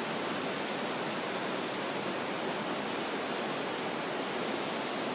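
Steady rushing noise of falling water from a waterfall, even and unbroken.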